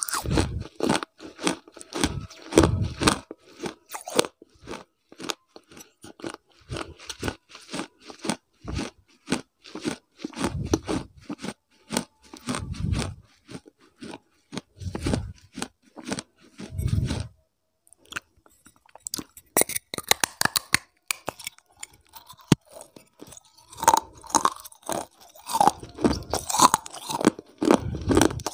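Baked clay being bitten and chewed right at a close-held lavalier microphone: sharp crunches and gritty grinding between the teeth, with a short pause a little past the middle before the crunching picks up again, loudest near the end.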